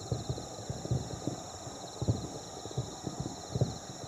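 Fireworks finale heard from far off: a rapid, irregular barrage of dull booms from many shells bursting at once, several a second, some louder than the rest.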